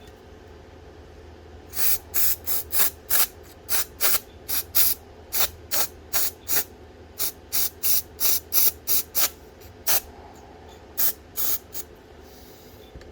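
Aerosol can of chlorine-free brake cleaner sprayed onto a disc brake pad retaining spring in many short hissing spurts, two or three a second, starting about two seconds in and stopping shortly before the end.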